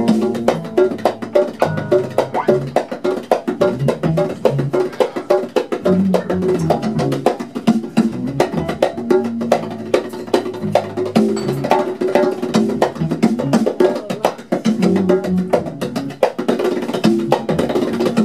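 Live funk band playing a groove: busy percussion and electronic-pad hits over electric guitar, bass and drums.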